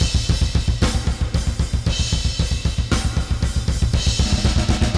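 Metal drum mix playing back: a fast, steady kick drum pattern under snare hits and crash cymbals about once a second. The kick is tightened by soothe2 sidechain processing, which cleans the area between hits.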